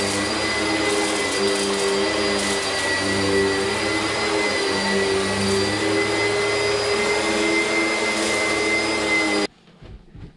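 Red bagged commercial upright vacuum running steadily over carpet, a dense motor rush with a steady high whine, during the dry pre-vacuum ahead of carpet cleaning. It cuts off suddenly near the end.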